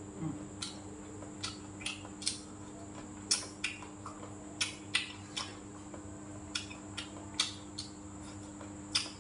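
Eating sounds from a person eating a rice meal with chopsticks and a spoon: a run of short, irregular clicks and smacks, one to three a second, over a steady faint hum.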